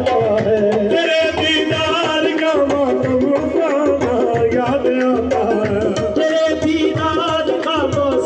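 Live qawwali: voices singing the melody in ornamented, wavering runs over sustained harmonium tones and a busy hand-drum beat.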